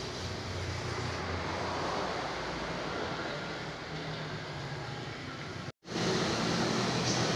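Steady background rumble and hiss, with no distinct handling sounds. It cuts out for an instant about six seconds in and comes back slightly louder.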